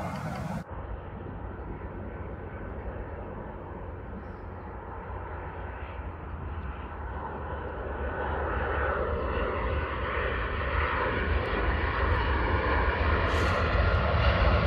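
Jet engines of a Boeing 737 airliner on final approach, a steady rushing drone that grows louder as the aircraft nears. Less than a second in, the sound of a different approaching jet cuts off abruptly.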